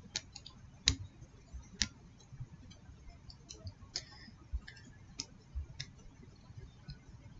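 Small plastic Lego pieces being handled and pressed together, giving irregular sharp clicks and taps, a dozen or so spread unevenly, the loudest about one and two seconds in.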